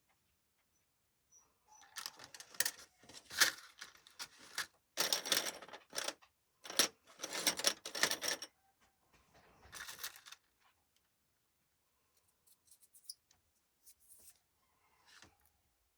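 Hands handling small objects on a table, with rustling, scraping and clicks in bursts over the first ten seconds, then a few scattered soft clicks.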